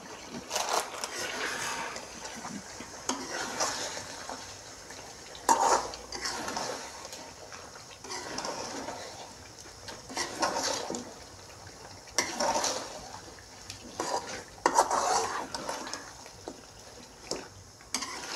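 A metal spatula scraping and knocking against a metal kadhai as chicken pieces in thick masala are stirred and fried, in irregular strokes every second or two. A light sizzle of frying runs underneath.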